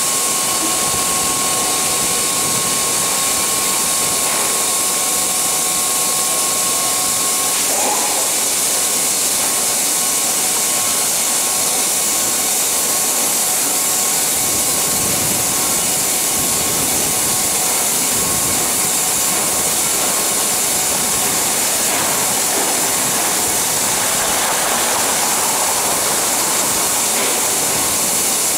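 Grain pouring in a steady stream from the bottom doors of a railway hopper wagon into a receival pit: a loud, even hiss, with a faint steady high whine underneath for most of it.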